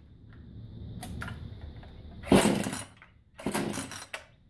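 Recoil starter of a Jonsered chainsaw being pulled for a cold start, with the choke on and the decompression valve open: a light tug, then two hard pulls about a second apart. The engine does not catch and run.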